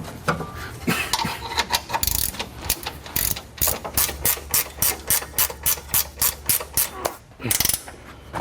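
Hand ratchet wrench clicking as a suspension bolt is tightened, a quick even run of about four clicks a second in the middle of the stretch, with some clatter of tools and parts before it.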